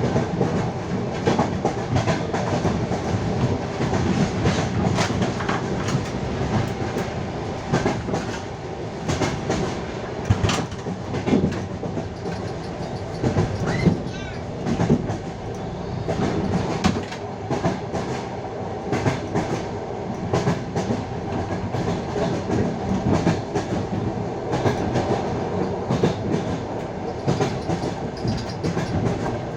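Passenger train running, its wheels clacking over the rail joints with a steady rumble, heard from inside a carriage.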